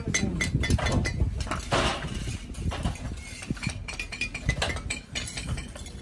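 Fired clay bricks clinking and knocking against each other as they are picked up and handled from a pile, in quick irregular clicks with a short scrape about two seconds in.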